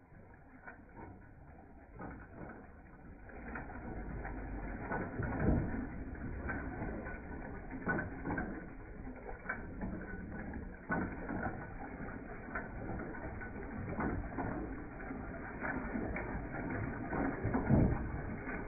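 Antique single-cylinder side-shaft gas engine running, its valve gear and side-shaft mechanism clicking and clacking, with a heavier thump every few seconds. It grows louder over the first few seconds.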